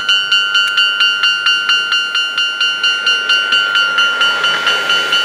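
Japanese level-crossing warning bell clanging in a fast, even rhythm, about three strikes a second, sped up and raised in pitch by double-speed playback. About three seconds in, a rushing noise swells under the bell as a train passes.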